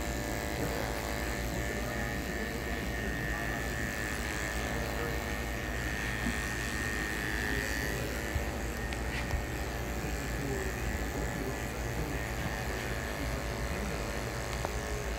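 Electric hair clipper running with a steady hum as it cuts short hair for a skin fade.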